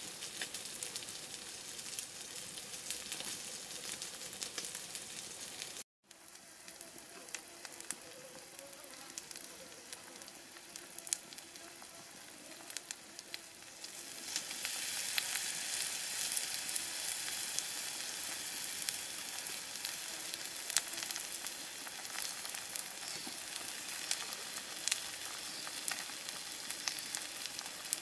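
Whole fish sizzling on a hot flat stone slab over a wood fire, with scattered light crackles. The sound cuts out for a moment about six seconds in. The sizzle is louder from about halfway on, while chili paste is spread over the fish with chopsticks.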